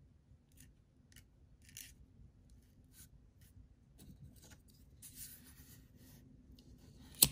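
Faint small clicks and light rustles of fingers handling a fishing hook, snap swivel and shrink tubing, then near the end one sharp, loud click of a pocket lighter being struck.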